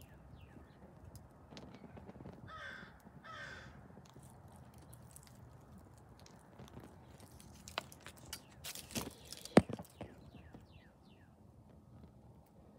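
Two crow caws a little under a second apart, with small birds chirping faintly throughout. About eight to ten seconds in come several knocks, one sharp and much louder than the rest.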